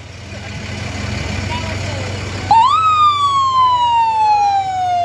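A fire engine's engine running and growing louder as it approaches. About halfway through, its siren rises sharply, then winds down in one long falling wail.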